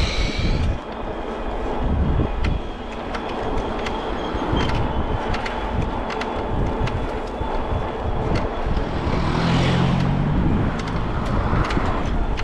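Street traffic and wind buffeting the microphone while riding through city streets, with light clicks and rattles throughout. A vehicle passes with a low hum about ten seconds in.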